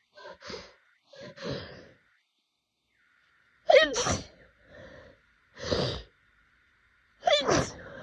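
A person's allergy sneezing fit: a few quick in-breaths, a short pause, then three loud sneezes in rapid succession, the first and last opening with a pitched gasp before the burst.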